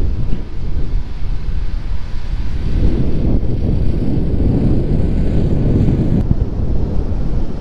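Wind buffeting the microphone: a gusty, low rush that grows stronger about two and a half seconds in.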